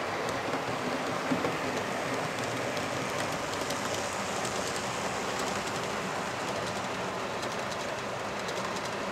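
Model diesel locomotives and freight wagons running on a model railway: a steady motor whirr with a rapid clicking of wheels over the track that comes in after a couple of seconds, and a single knock about a second in.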